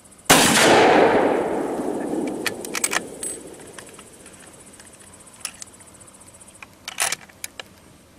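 A single rifle shot fired at wild boar, its echo rolling away for two to three seconds. A few short, sharp clicks follow.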